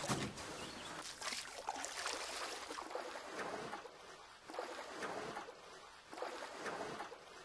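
Water washing and lapping, swelling and fading every second or two.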